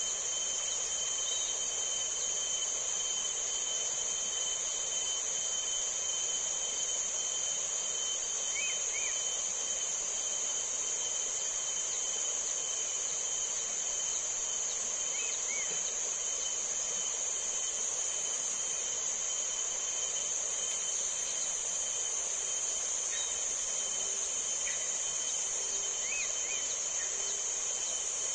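Steady, high-pitched drone of a chorus of insects such as cicadas or crickets, with a few faint short chirps scattered through.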